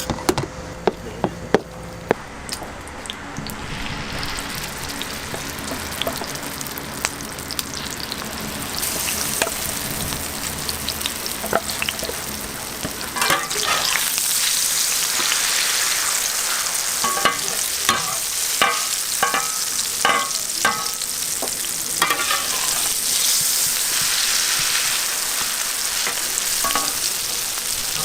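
Welsh onion pancake (pajeon) frying in oil on a hot griddle: a steady sizzle that grows louder in steps, about a third of the way in and again around halfway. A few sharp knocks come at the start, and a run of short metal scrapes and taps from a spatula works the pan in the middle stretch.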